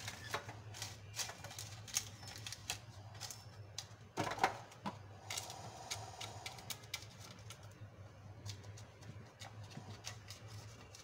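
Butter paper crinkling and rustling as it is pressed into a greased metal loaf tin, with scattered light clicks and taps against the tin, loudest about four seconds in.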